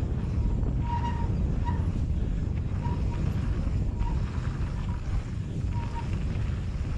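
Wind buffeting a helmet-mounted action camera and mountain bike tyres rolling on a dirt trail make a steady low rumble. A faint short squeak recurs about six times.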